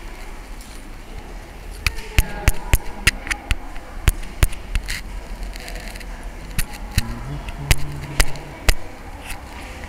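Sharp, irregular clicks and knocks of a handheld camera being handled close to its microphone, about a dozen between roughly two and nine seconds in. A low hum of a few stepped notes comes in about seven seconds in.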